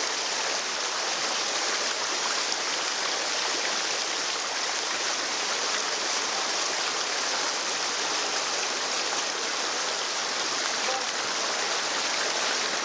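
A stream rushing over rocks: a steady, even rush of running water with no let-up.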